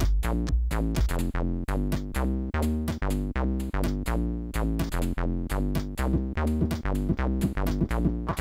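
Commodore 64 SID-chip demo music: a fast electronic drum beat of about four hits a second over a steady synth bass line and melody.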